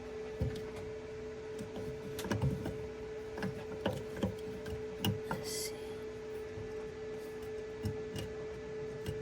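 Irregular small clicks and taps of hand work on a hatch latch, screws and metal hardware being handled and set. A steady low hum runs underneath, and a short hiss comes about five and a half seconds in.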